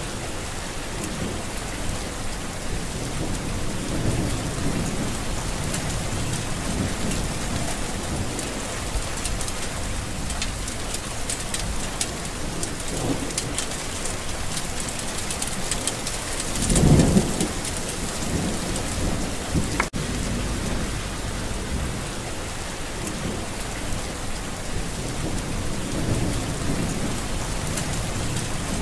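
Steady rain falling through a thunderstorm, with low rolls of thunder rising and fading; the loudest thunder swells about two-thirds of the way through.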